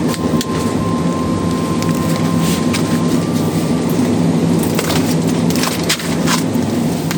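A steady low mechanical hum, like a running motor or engine, with scattered sharp clicks and knocks over it.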